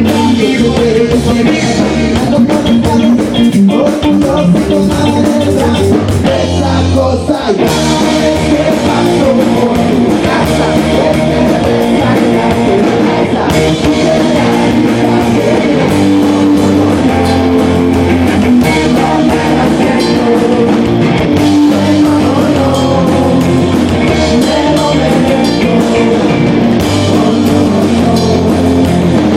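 Live rock band playing: electric guitar and drum kit with a singing voice, loud and continuous.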